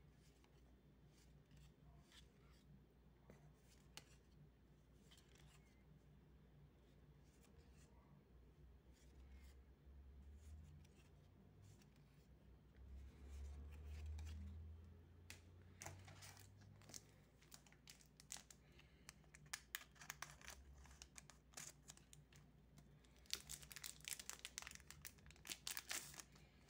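Trading cards flipped through by hand give faint scattered clicks. Near the end comes a quick run of crinkling as a foil Magic: The Gathering booster pack wrapper is torn open.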